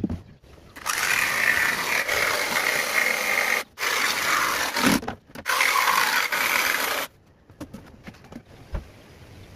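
Cordless jigsaw cutting through a plywood sheet, stopping briefly twice and then cutting out about seven seconds in. A few light knocks follow.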